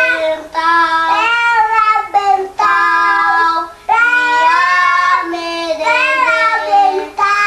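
A young child singing a children's song alone, in short phrases of held, sustained notes with brief breaths between them.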